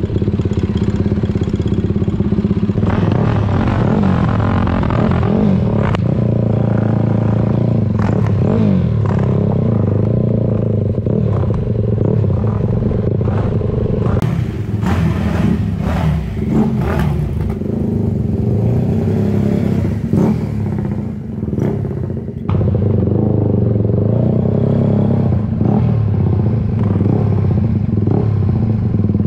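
Dirt bike engine running under way, heard close from the bike itself, the throttle rising and falling as it rides. In the middle come repeated sharp clattering knocks, and about twenty seconds in the engine eases off briefly before picking up again.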